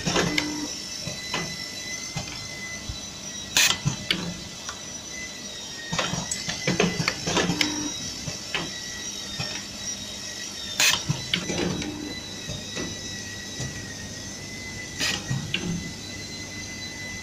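Automatic DC-plug soldering machine running its cycle: pneumatic actuators clack in sharp clusters every three to four seconds over a steady high whine.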